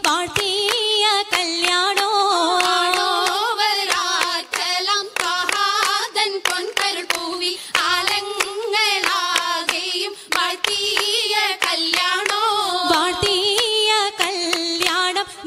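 Oppana song sung in a wavering, ornamented melody, with frequent rhythmic hand claps from the oppana dancers.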